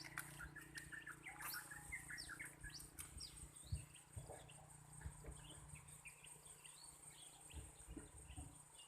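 Faint birds chirping: many short, quick high calls overlapping one another.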